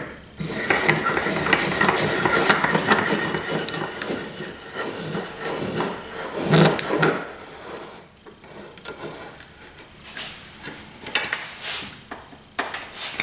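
Metal scraping, rubbing and knocking as the pump motor's stator core is handled and clamped in a bench vise, with one sharp clank about halfway through.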